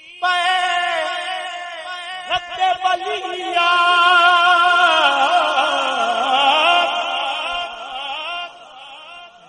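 A man's solo voice singing a wordless melismatic passage of an Urdu manqabat, with long held notes ornamented by wavering vibrato and quick runs, fading near the end.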